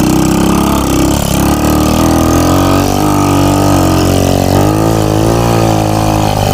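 Trail motorcycle with a Honda Supra four-stroke single-cylinder engine running under load, its engine note rising and falling as the throttle changes.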